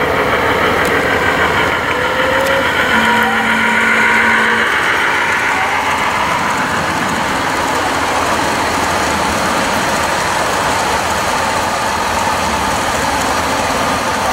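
Ride-on miniature railway train running along its track, heard from aboard: a steady rumbling running noise, with a brief whine a few seconds in.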